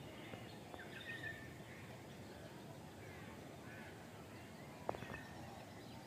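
Faint outdoor ambience with scattered bird chirps and one sharp click about five seconds in.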